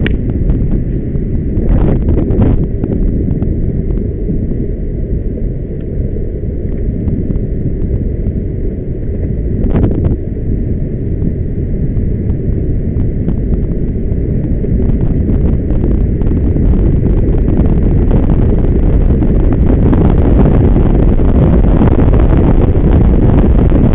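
Wind rushing over the camera microphone together with the rumble of longboard wheels rolling on asphalt during a fast buttboard descent. A few short sharp noises break in near the start and about ten seconds in, and the rush grows louder through the second half as speed builds.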